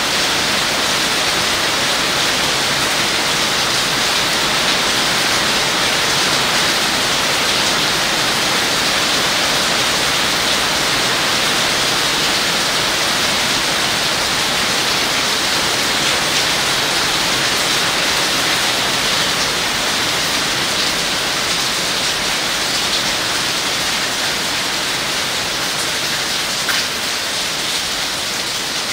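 Heavy rain falling steadily on foliage: a dense, even hiss with no breaks, easing slightly near the end.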